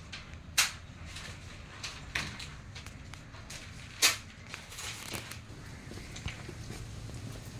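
Two sharp knocks about three and a half seconds apart, with a couple of fainter taps between them, over low background noise.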